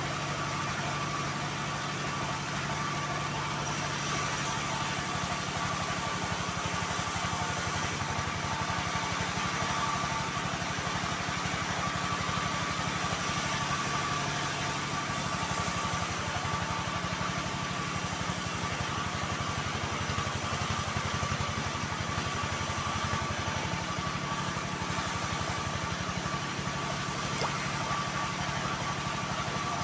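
Homemade band sawmill running steadily while sawing mahogany: an even motor drone with a steady high whine over it.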